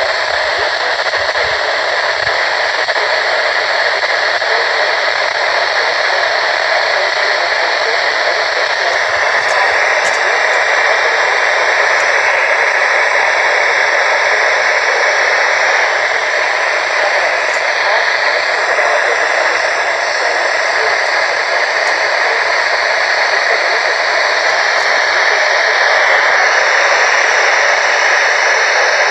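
Weather radio receiver putting out a steady, loud hiss of static, with no voice coming through.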